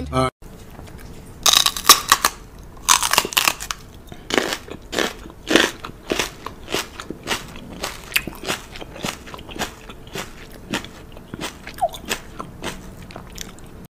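A person biting and chewing crunchy food close to the microphone: a run of sharp crunches every half second or so, loudest in the first few seconds, then going on softer.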